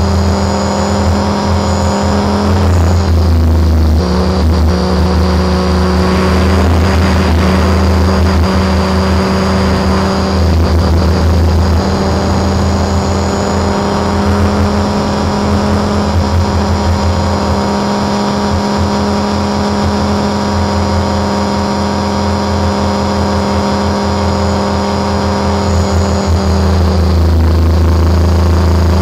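Align T-Rex 550 radio-controlled helicopter heard from its own onboard camera in flight: the powerplant and rotor running steadily with a deep hum and a high whine above it. The pitch dips briefly a few seconds in and again near the end.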